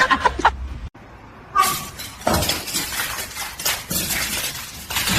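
Clinking and knocking of hard objects, starting a little under two seconds in after a brief near-silent gap.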